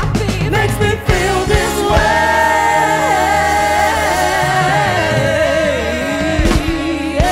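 Live band music: a male lead singer and backing singers holding long harmonised notes over drums and electric guitar. Drum strokes come through in the first two seconds, then the voices sustain together, with a couple of sharp drum hits near the end.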